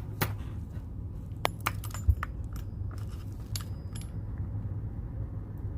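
Keys and metal lock hardware clinking while a control key is handled at a removable lock core: scattered sharp metallic clicks and ticks, with one low knock about two seconds in.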